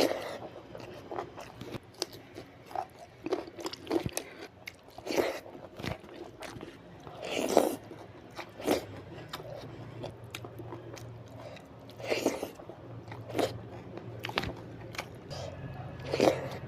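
Close-miked eating: irregular crunchy bites and wet chewing of fried vegetable bhaji with rice, a sharp crunch every second or so.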